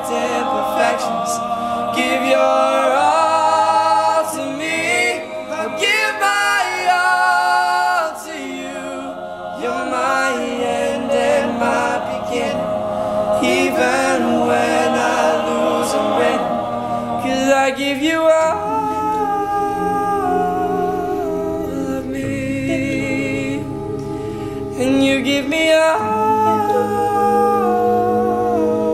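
All-male a cappella group singing in close harmony, several voices together with no instruments.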